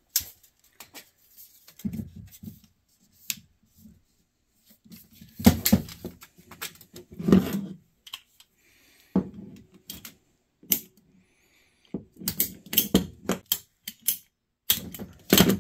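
Irregular clicks and clatter of a steel tape measure and a length of rubber heater hose being handled on a plastic truck bed, with the hose cut with a hand cutter near the end.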